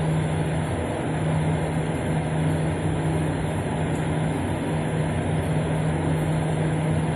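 A steady mechanical hum with an even hiss behind it and a constant low drone.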